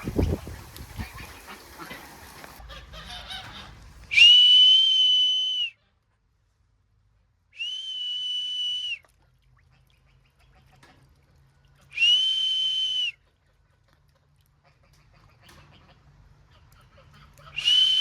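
A high, steady whistle tone sounds four times, each note lasting a second or more, with near silence between the notes. Before the first note there is a thump and a few seconds of mixed noise.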